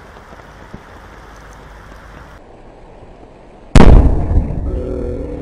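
Calcium carbide (acetylene) charge detonating: one sudden, very loud blast nearly four seconds in, dying away over the next second or so.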